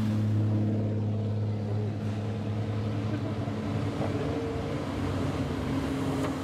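Engines and exhausts of slow-moving lowered cars running at low revs as they drive past, a steady low drone.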